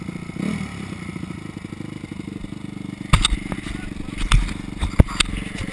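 Honda dirt bike engine running at low speed, with a short blip of throttle about half a second in. In the second half, several sharp knocks and clatters sound over the engine.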